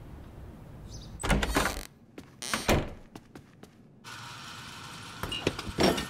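Cartoon sound effects of a refrigerator door: a short noisy swish about a second in, a knock and a few light clicks, then a steady hum from about four seconds with another knock near the end.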